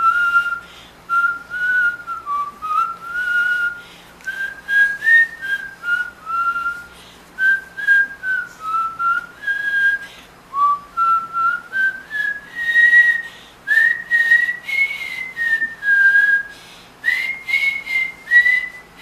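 A person whistling a slow tune in short phrases, the notes sliding between one another and climbing higher in the second half.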